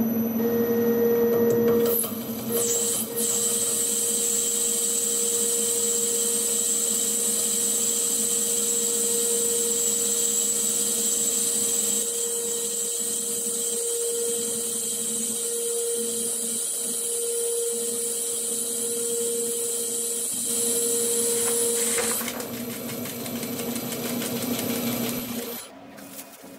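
Homemade CNC lathe turning a nylon workpiece at 500 rpm with a carbide insert, running with a steady hum and a high whine as the nylon comes off in a long stringy chip. The high whine stops a few seconds before the end, and the sound drops away sharply near the end.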